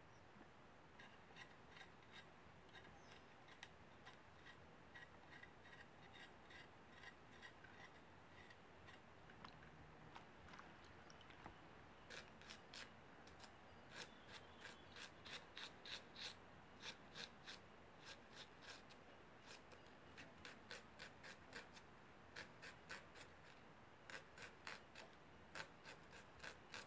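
Red onions being sliced by hand against a knife blade: a run of faint, crisp cutting strokes, about two a second, growing quicker and louder about halfway through.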